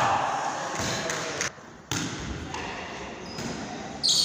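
A reverberant sports hall between volleyball rallies. Players' voices and shouts die away into a low murmur, the sound cuts out for about half a second, and then a sudden high steady whistle starts near the end, the referee's signal to serve.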